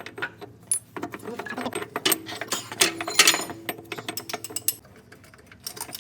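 Metal gearbox parts and hand tools clinking and knocking as they are handled, in a rapid irregular run of sharp clicks.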